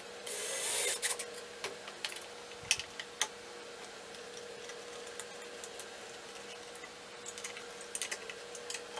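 Cordless drill briefly driving a hose-clamp screw tight around a glass mason jar, a short burst about half a second long near the start. It is followed by scattered clicks and taps of glass and metal as the jars are handled and another clamp is turned with a screwdriver, with a faint steady hum underneath.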